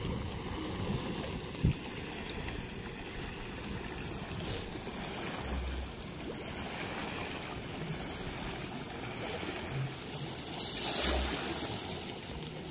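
Steady rush of river water lapping against a sloped concrete bank, with wind on the microphone. A single sharp click comes near the start, and a short, louder rush of noise follows near the end.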